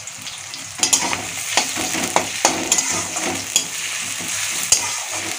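Onions, chillies, garlic paste and freshly added chopped tomato sizzling in hot oil in a metal kadai. From about a second in, a metal spatula repeatedly scrapes and knocks against the pan as the mixture is stirred.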